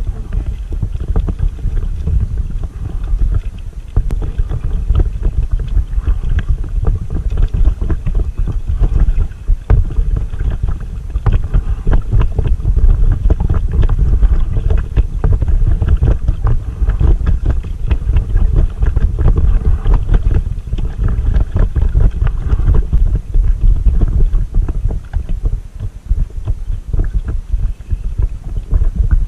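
Wind buffeting the microphone of a camera on a paddled inflatable kayak: a loud, gusty low rumble, with the splash of double-bladed paddle strokes in the water.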